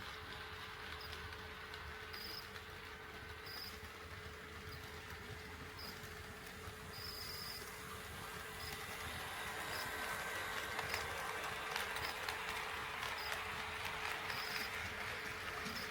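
HO-scale model train running on sectional track: a steady electric motor hum with wheels clicking over the rail joints, growing louder about ten seconds in as the train comes closer.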